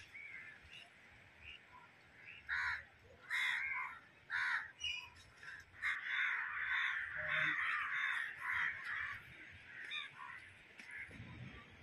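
Crows cawing: a few single caws a couple of seconds in, then a longer run of caws in quick succession from about six to nine seconds.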